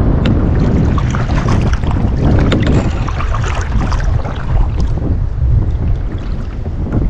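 Wind buffeting the microphone on a kayak at sea, with water splashing and lapping against the hull, busiest in the first half.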